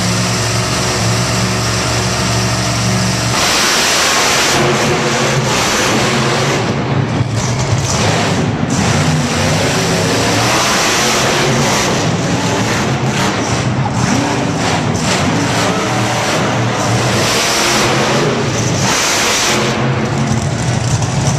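Monster truck engines running loud and revving hard. A steady engine note gives way about three seconds in to rough, full-throttle revving that rises and falls, easing back to a steadier note near the end.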